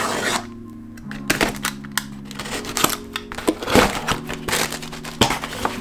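Background music, over which come irregular clicks and short crackling rustles of a small product box being opened and handled.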